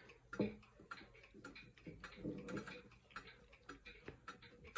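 31-day pendulum regulator wall clock ticking faintly, a run of short sharp clicks, while its minute hand is being pushed round by hand toward the hour.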